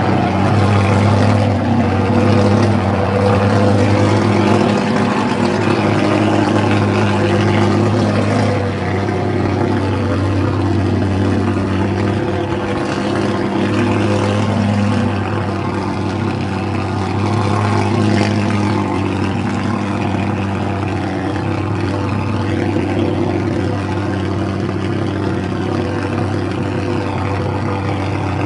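Handheld thermal fogger's pulse-jet engine running with a steady, loud, low-pitched drone as it blasts out insecticide fog. It drops slightly in level about halfway through.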